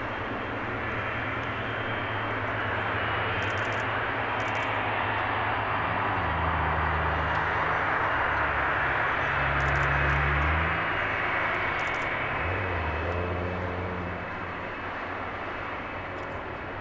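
Jet airliner's engines roaring past, building to a peak about ten seconds in and then fading away.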